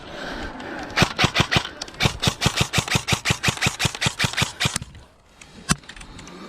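Airsoft gun firing on full auto: a short burst about a second in, then a longer burst of rapid shots, about eight a second, lasting nearly three seconds, and a single shot near the end.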